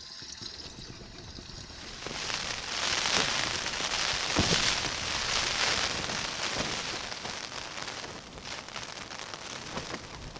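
Heavy rain pattering in a dense hiss of fine drops, swelling about two seconds in and easing off toward the end.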